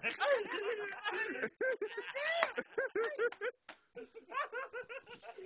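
Men laughing and talking over each other, the laughter coming as runs of quick, short repeated syllables in the second half.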